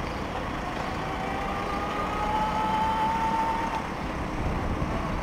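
Electric folding bike riding along a street: a steady rush of road and wind noise, with a faint whine rising slightly in pitch from about one to four seconds in as the motor picks up speed.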